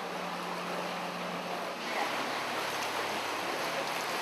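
Floodwater splashing and sloshing as people wade and vehicles drive through it, with a low steady engine hum underneath that drops in pitch about two seconds in.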